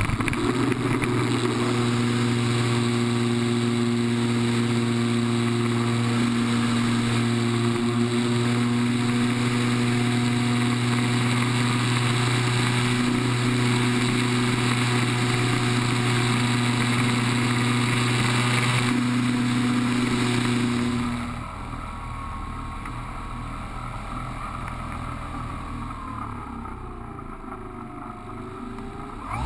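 The brushless electric motor and propeller of an E-flite Apprentice 15e RC plane run at a steady high throttle with a constant whine through the takeoff roll and climb, heard from a camera on the fuselage. About 21 seconds in, the motor is throttled back and the sound drops to a quieter rush of wind with a faint wavering hum.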